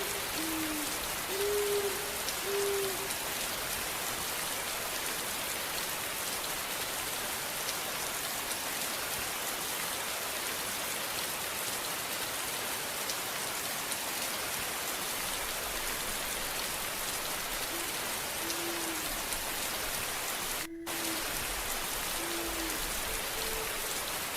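Steady rain falling, an even hiss throughout, with a few short low pitched notes in the first few seconds and again near the end, and a brief dropout in the sound about 21 seconds in.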